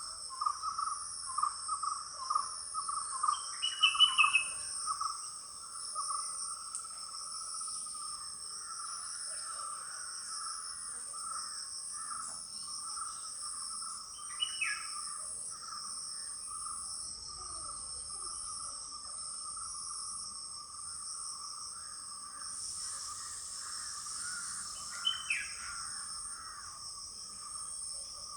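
Insects chirring steadily in several high, even-pitched bands, over a lower pulsing trill that is strongest in the first few seconds. A few short bird calls stand out, the loudest about four seconds in.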